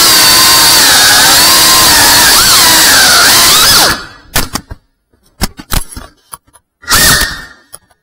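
FPV quadcopter motors and propellers whining loudly, their pitch sliding up and down with the throttle. The whine cuts off suddenly about four seconds in as the drone crashes and the motors stop. A few knocks follow, then a short burst of motor whine near the end.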